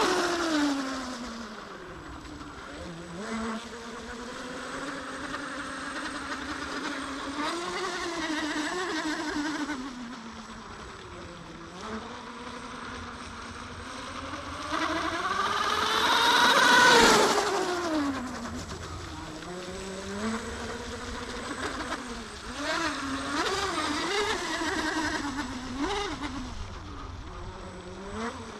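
Twin TP 2030 3,750 kV motors of a mini RC catamaran speedboat, spinning 3-blade props, whining over the water. The pitch rises and falls as the throttle changes, and the sound is loudest when the boat passes close at the start and again a little past halfway.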